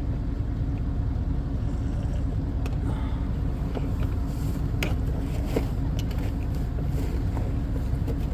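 A screwdriver prying at plastic door-panel trim, giving a few sharp clicks, over a steady low rumble.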